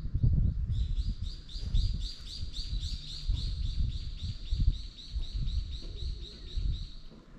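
A bird calling in a fast series of short, repeated high chirps, about five a second, for most of the stretch, over an irregular low rumble.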